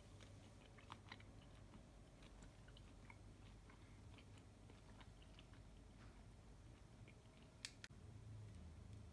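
Near silence with faint, scattered small clicks and crackles, and one sharper click about three-quarters of the way through.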